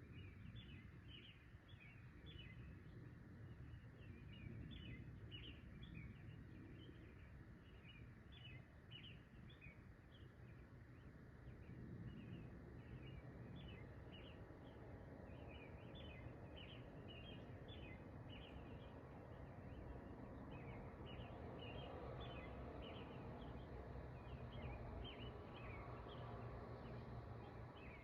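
Faint pre-dawn outdoor ambience: a bird chirping in a quick, steady run of short high notes, several a second, over a low rumble that grows a little louder about halfway through.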